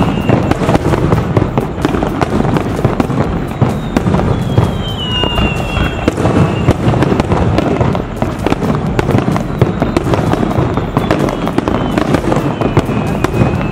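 Fireworks display: aerial shells bursting in rapid, dense succession, booms and crackling piling over one another with a few whistles among them.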